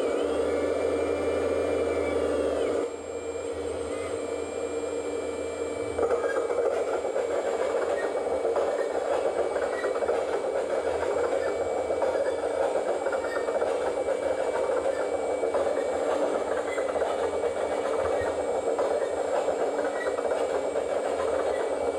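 Electric hydraulic pump of a 1/14-scale Kabolite 970 RC excavator running steadily, with a hiss, as the boom and bucket are worked. About three seconds in it drops quieter, then picks back up at about six seconds and runs on.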